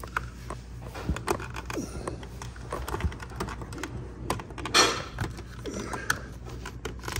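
Scattered plastic clicks and rattles of door wiring connectors and clips being handled and pushed into place, with a louder rustling scrape about five seconds in.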